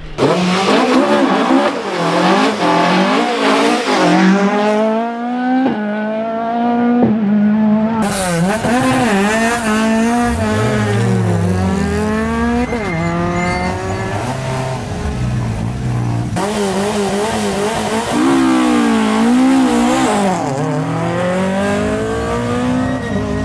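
Ford Escort rally car engines revving hard, climbing in pitch and dropping back with each gear change as the cars accelerate, over several short takes.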